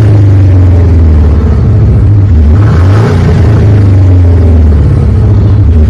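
Mercedes-Benz C200 coupe with a THOR electronic exhaust playing a simulated C63-style V8 exhaust note through its speakers: a deep, steady rumble at idle with one rev blip about halfway through.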